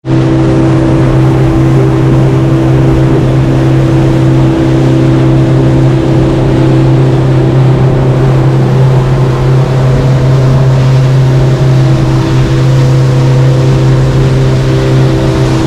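Motorboat engine running steadily under way, a constant hum over a rush of water and wind noise.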